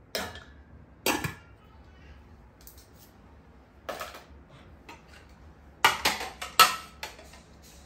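Kitchenware clinking as tongs, a stainless steamer pot, a utensil holder and a plate are handled: single sharp clinks about a second apart at the start, another near four seconds, then a quick run of several clinks around six to seven seconds.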